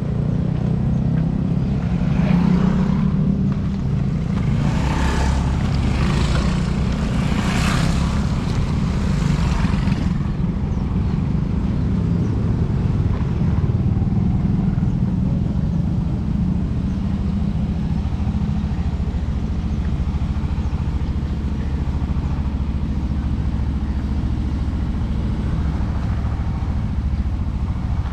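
Road traffic: a steady low rumble of engines, with several motorcycles and cars passing close by in the first ten seconds.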